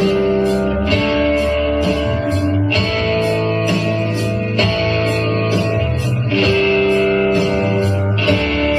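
Instrumental break in a swamp-rock song: electric guitar playing over a low bass line and a steady beat, with no vocals.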